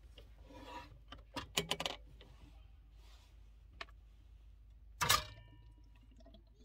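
A red plastic 64-ounce water jug handled over a camp stove: its lid and handle clicking and rattling, with a quick run of clicks about a second and a half in. About five seconds in comes a sharp knock with a brief ringing tone.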